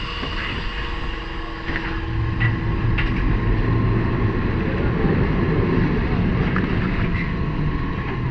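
Lisbon Tram 28 streetcar running, a steady rumble and rattle that grows louder about two seconds in, with a few light clicks and a faint held tone early on.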